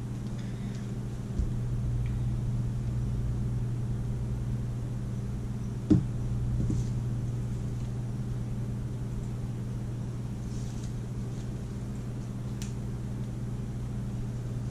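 Steady low hum of a running appliance, with faint paper rustling and soft taps on the countertop as paper pieces are pressed down onto a glued paper plate; a thump about a second and a half in and a sharp knock about six seconds in, the loudest sound.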